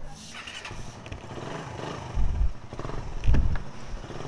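Suzuki Raider 150's single-cylinder four-stroke engine running at idle through its aftermarket Daeng exhaust, with two brief louder low surges about two and three seconds in.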